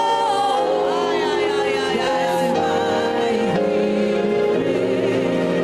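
Gospel worship music: a singer holds the last note of a line with a wavering pitch, which ends about half a second in, then sustained instrumental chords carry on.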